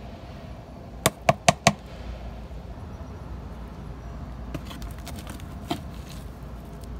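Four quick, sharp knocks in a row, about a fifth of a second apart, like a plastic hand tool rapped against the rim of a plastic worm-bin tray to shake off compost. A few lighter clicks and rustles follow over a steady low background rumble.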